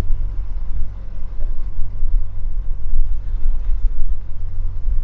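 Wind buffeting the microphone aboard a boat under way at sea: a loud, uneven low rumble that surges and dips.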